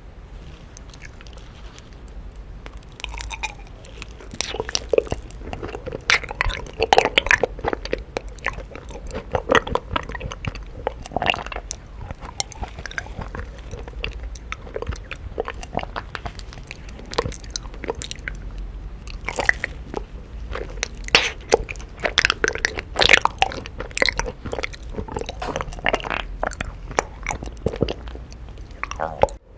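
Close-miked biting and chewing of honeycomb, with irregular crunching and clicking mouth sounds that start about three seconds in.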